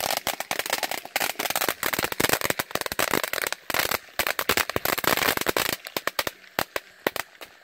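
Ground fountain firework spraying crackling sparks: a dense, rapid crackle of tiny pops that thins to scattered single pops about six seconds in.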